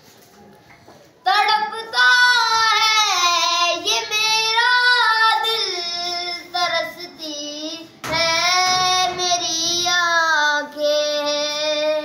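A boy singing an Urdu song solo and unaccompanied, in long held notes with a wavering vibrato. The singing comes in about a second in and pauses briefly for a breath near the eight-second mark before going on.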